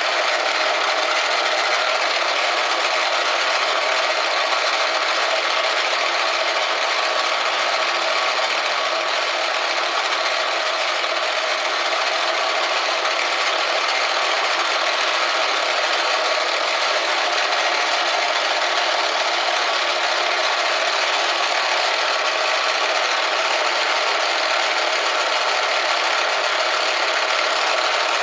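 Model B2227L benchtop metal lathe running, its tool turning down a brass workpiece: a steady, even hiss that holds level throughout.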